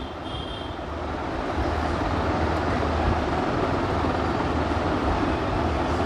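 Steady rumbling noise with a low hum, swelling over the first second or two and then holding level.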